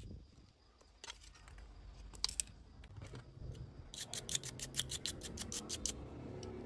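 A small brush scrubbing a smartphone's circuit board in quick, crisp strokes, about six a second, starting about four seconds in. Before that, a few light clicks from handling the phone's frame and tools.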